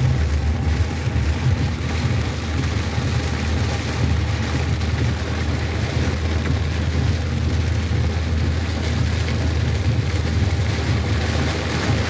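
Heavy rain on a car's windscreen and body, heard from inside the moving car over the steady low rumble of the engine and tyres on the wet road.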